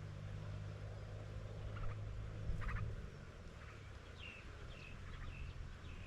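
Small birds giving a string of short, high chirps, a few early and more in the second half, over a steady low hum that drops a little about three seconds in.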